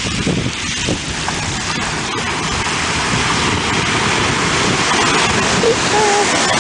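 Steady wind noise on the microphone over the constant wash of surf on a pebbly beach.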